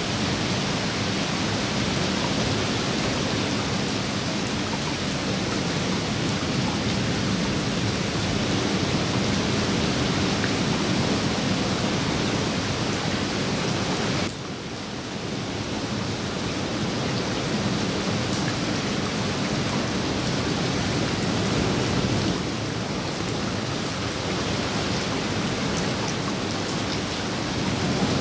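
Steady rain falling onto the water of a swimming pool, an even hiss with no distinct drops standing out. About halfway through it drops suddenly in level, then builds back over a few seconds.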